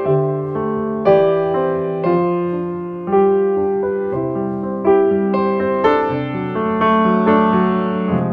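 Background piano music: slow notes and chords, a new one struck about once a second and each fading away.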